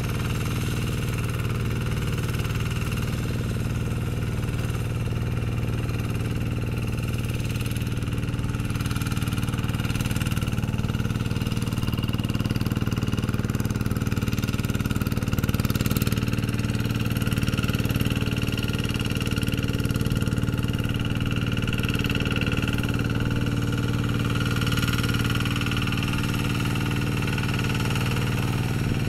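Kubota RD110Di-2T 11 hp single-cylinder diesel engine on a two-wheel hand tractor, running steadily at an even speed as the tractor rotary-tills a wet paddy.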